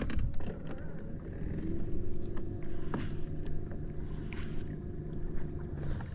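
Bow-mounted electric trolling motor running: a steady hum that starts about two seconds in and stops just before the end, over a low rumble of water and wind, with a few light clicks.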